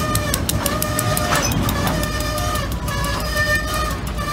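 Loaded side dump railcars rolling past, their steel wheels clicking over the rail for the first second or so, with intermittent high squealing tones that come and go.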